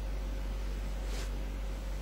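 Steady low electrical hum and hiss with a faint steady tone above it, and one brief soft rustle about a second in.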